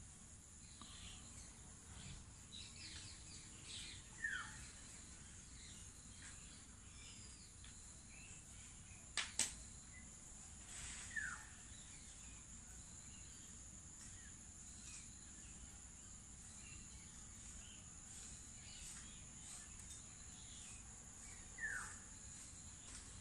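Insects trilling steadily at a high pitch, with a bird giving a short downward-sliding call three times. About nine seconds in, two sharp clicks come close together.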